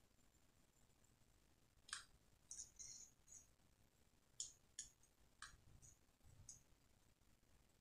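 Near silence, broken by faint scattered clicks and ticks from handling a small circuit board, its wires and a soldering iron.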